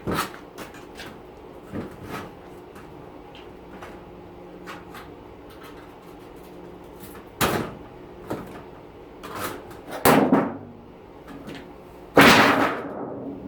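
Thin sheet-steel casing panels of a dishwasher banging and clanging as they are pulled off for scrap. There are a few light knocks, then sharp bangs about seven and a half and ten seconds in, and a loudest clang near the end that rings on.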